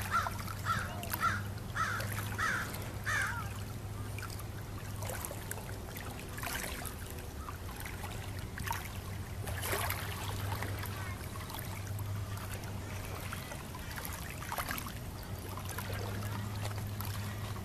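A bird calling about six times in a quick, even series over the first few seconds, then small waves lapping at the shore, with a steady low hum underneath throughout.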